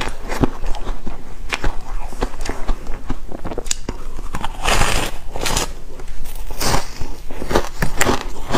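Close-miked biting and chewing of soft, foamy frozen ice (freezer-frost foam ice): a dense run of crisp crackling crunches, with the loudest bites a little past the middle.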